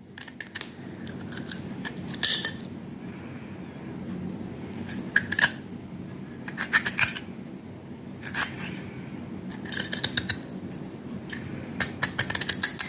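Metal utensil scraping and scooping out the flesh of a black radish, hollowing it out: irregular bursts of short scratchy scrapes and clicks, every second or two.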